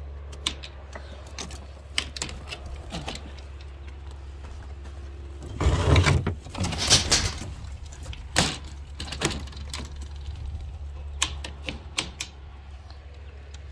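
Wooden chicken coop being opened by hand: scattered clicks and knocks of a latch and wooden door or ramp, with a louder burst of clatter about six seconds in.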